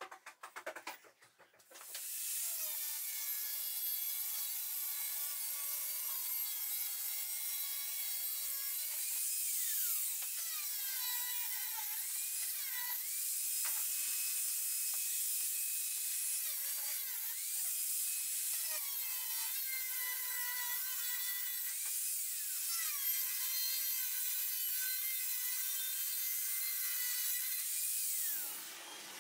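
A few handling clicks, then an angle grinder cutting cement board. The motor starts about two seconds in with a high whine and a hiss; its pitch dips and recovers again and again as the disc bites into the board, and it stops just before the end.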